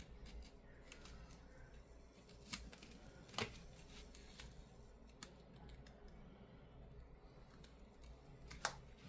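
Near silence, broken by a few faint, sharp clicks of a small hand tool working at a tablet's screen.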